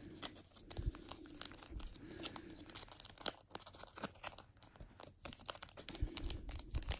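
Baseball trading cards and their packaging handled by hand: a run of faint, irregular clicks and crinkles as the cards are shifted and flicked through.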